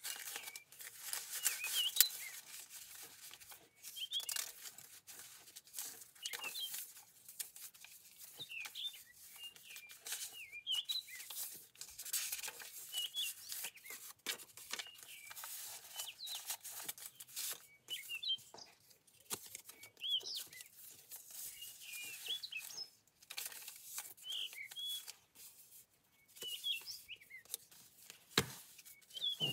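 Paper pages and envelopes of a handmade junk journal rustling and flapping as they are turned and handled, with small clicks of paper against paper. Small birds chirp repeatedly in the background.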